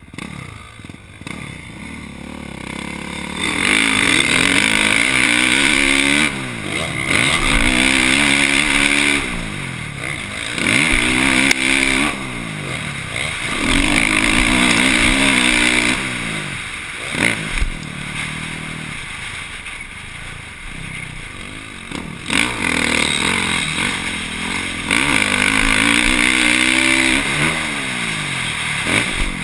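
Suzuki RM-Z450 four-stroke single-cylinder motocross engine revving hard and shifting up, its pitch climbing again and again between spells of backing off, with wind rushing over the helmet camera. A couple of sharp knocks come near the middle.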